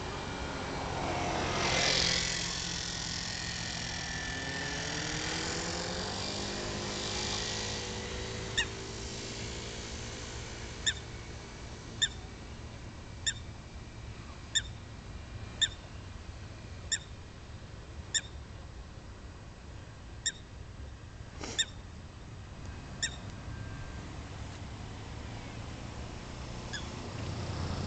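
Canada geese giving short, sharp calls about once a second, a dozen or so over the middle of the stretch, over a steady low traffic hum. A vehicle passes about two seconds in, and another draws near at the end.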